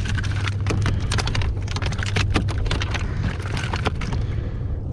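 Rapid, irregular clicks and taps over a steady low hum.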